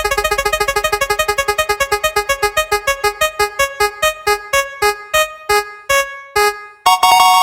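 Electronic spin-wheel sound effect: rapid pitched synth ticks that slow down steadily as the wheel decelerates, then a short bright jingle near the end as the wheel stops on its pick.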